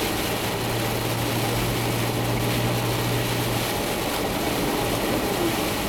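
Steady engine and tyre noise inside a Toyota FJ Cruiser's cabin on the move, with a low steady hum that stops about four seconds in.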